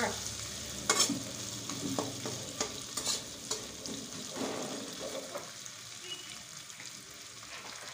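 Oil tempering with soaked chana dal and curry leaves sizzling in a metal kadhai, with a steady hiss. A flat metal spatula scrapes and clicks against the pan as it is stirred, sharpest about one and three seconds in.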